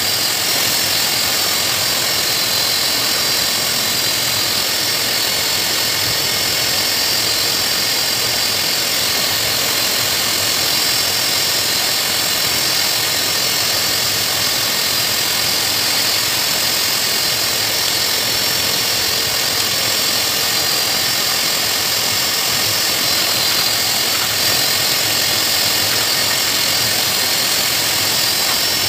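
Pet grooming blower (dog dryer) running steadily, pushing air through its hose and nozzle into a dog's thick coat: a constant rushing of air with a high whine over it.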